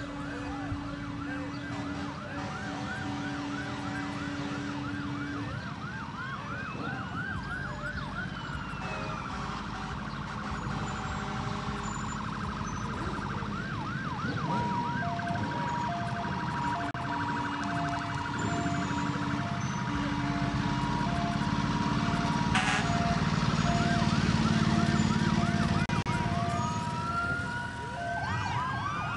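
Several vehicle sirens sounding at once, moving between a fast yelp, slow rising-and-falling wails and an alternating two-tone hi-lo, over a low rumble of vehicle engines. They grow louder in the second half.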